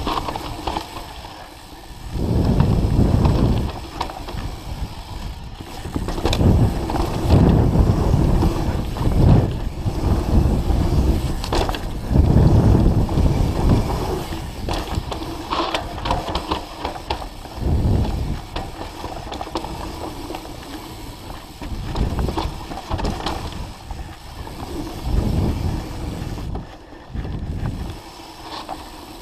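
Mountain bike descending a dirt trail at speed: tyres rolling and skidding over dirt and roots, with the bike rattling. Uneven surges of low rumble every second or two, and scattered sharp knocks from bumps.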